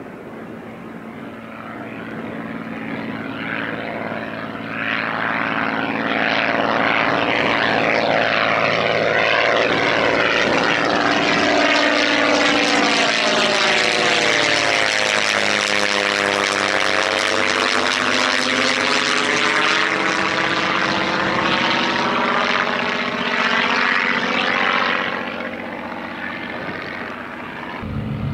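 Walter Minor six-cylinder inverted inline engine and propeller of a Zlin Z-326 Trener Master in a flyby. The sound builds over the first few seconds and stays loud as the plane passes overhead, with a sweeping, phasing tone and a falling pitch. It then fades a few seconds before the end.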